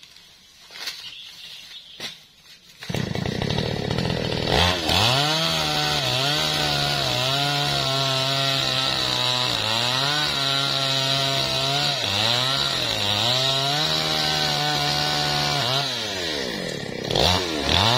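Maestro mini chainsaw cutting into a teak trunk. It comes in suddenly about three seconds in, and its engine note repeatedly drops as the chain bogs in the cut, then climbs back.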